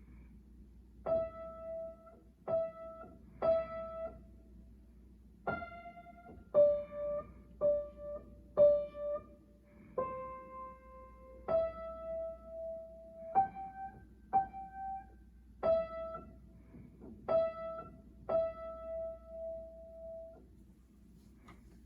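Piano playing a slow, simple melody one note at a time, about seventeen notes, several held longer than the rest.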